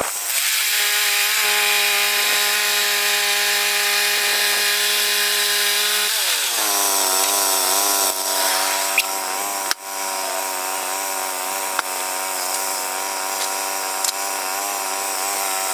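Woodland Mills HM122 portable bandsaw mill running, its gas engine driving the band blade through a red cedar log. The engine's steady pitch drops about six seconds in and holds lower, with a couple of sharp clicks partway through.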